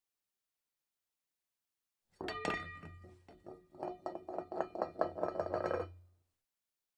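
Clinking: one sharp, ringing strike about two seconds in, then quick repeated taps about five a second over a low hum, stopping abruptly about a second before the end.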